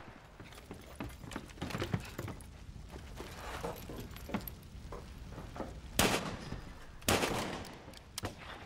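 Battle gunfire: scattered small shots and clatter, then two loud shots about a second apart near the end, each trailing off in a long echo.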